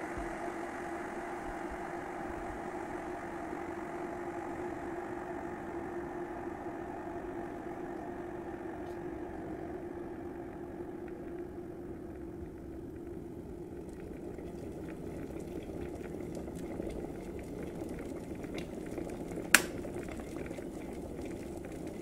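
Pigeon 1.5-litre stainless-steel electric kettle heating water to the boil: a steady hum and hiss, with faint crackling ticks setting in during the second half. A few seconds before the end comes one sharp click as the kettle's thermostat switches it off automatically at the boil.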